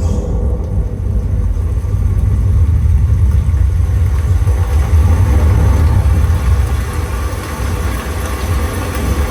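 Deep, steady bass rumble from a Dolby Atmos demo track played on a Sony ULT Tower 9AC party speaker.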